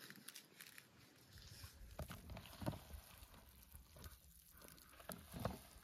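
Quiet handling sounds of meat being salted and worked for a marinade: a few soft clicks and taps, about two seconds in, again just under three seconds in and near the end, over faint background noise.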